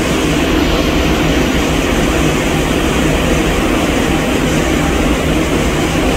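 Boat engine running steadily, with the rush of wind and water.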